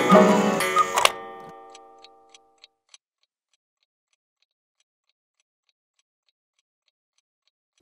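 Piano struck in a loud crashing chord that rings and dies away over about two seconds, followed by a few sharp clicks and then faint, even clock-like ticking in near silence.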